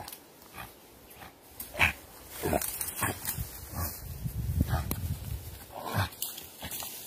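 Hunting dogs and a caught wild hog: a string of short, sharp animal cries and barks, with a stretch of low grunting in the middle as the dogs hold the hog.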